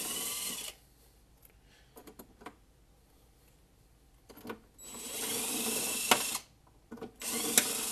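DeWalt 20-volt cordless driver with a socket bit spinning nuts off a console latch hook, in three short runs: one right at the start, one about five seconds in and a last one near the end.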